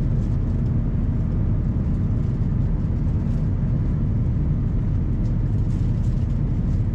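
Steady cabin noise of an Airbus A350-900 climbing after take-off: a low, even rumble from its Rolls-Royce Trent XWB engines and the airflow over the fuselage, heard inside the cabin, with a faint steady hum underneath.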